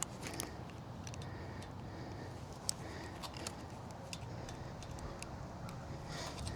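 Scattered sharp clicks and ticks from handling no-climb fence wire and tools, over a steady low hum.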